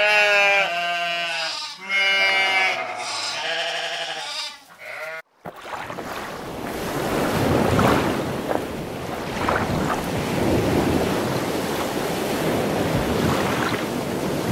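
Sheep bleating several times with wavering calls, then, after a brief break about five seconds in, the steady wash of sea waves that swells and ebbs.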